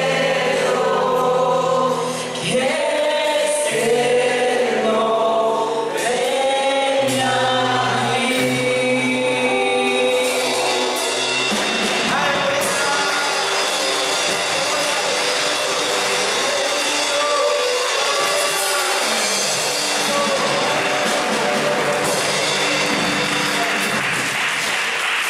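Live church worship music: voices singing long held notes over a band with drums, congas and electric guitar. About halfway through it turns into a denser, noisier wash of sound with the band still playing.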